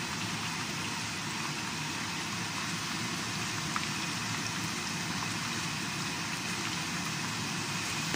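Chicken pieces frying in a pan of hot oil: a steady sizzle, with an occasional faint pop.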